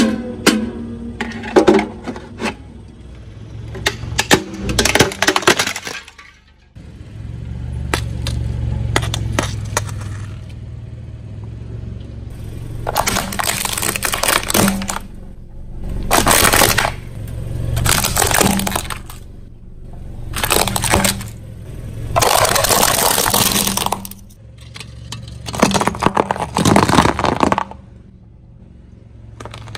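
Plastic toys being crushed under a car tyre: a toy ukulele's strings twang at the start, then its plastic body cracks and snaps. After a cut, a low steady rumble of the slowly rolling car runs under repeated bursts of plastic cracking and breaking as toy cars are flattened, about six or seven crushes a couple of seconds apart.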